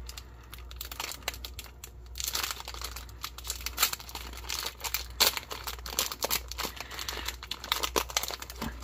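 Foil-lined cracker wrapper being crinkled and torn open by hand. The crackling grows denser and louder about two seconds in.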